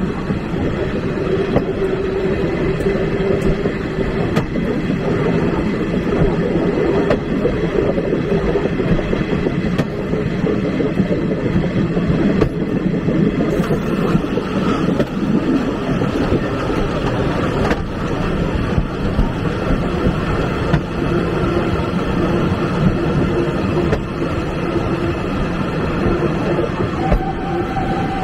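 Passenger railway carriage rolling along the track: a steady, continuous rumble of wheels on rails with a few faint steady tones over it.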